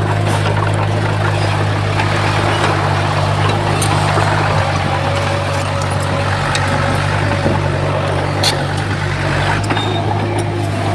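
Heavy diesel engine of earthmoving equipment running steadily, with a couple of sharp clicks, about four and eight and a half seconds in.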